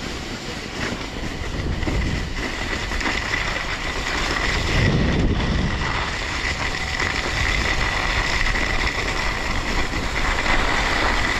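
Snow blades scraping and sliding over hard-packed, tracked snow on a downhill run, with wind rushing over the action-camera microphone. The noise builds as speed picks up over the first few seconds, then holds steady.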